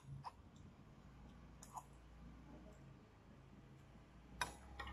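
Faint eating sounds: a metal spoon clicking against a ramen bowl and mouth noises. There are a few soft clicks, and the loudest comes about four and a half seconds in.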